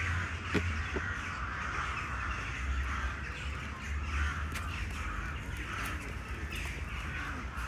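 Crows cawing, many calls overlapping into a continuous chorus, over the low rumble of a pushchair rolling along paving stones.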